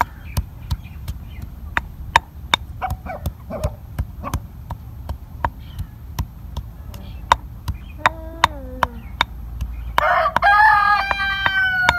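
Stone pestle pounding garlic in a stone mortar: sharp knocks, about two to three a second. A short falling fowl call comes about eight seconds in, then a rooster crows loudly near the end.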